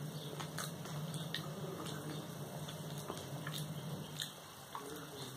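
Eating with the hands: chewing and biting, with fingers squishing and mixing rice on plates, and small scattered clicks and ticks over a steady low hum.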